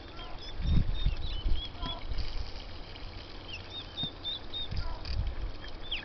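Turkey poults peeping: a run of short, high chirps, with a few low thumps.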